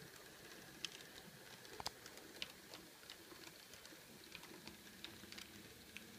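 Faint irregular clicks of an H0-scale model diesel locomotive's wheels running over rail joints and points, over a faint steady hum.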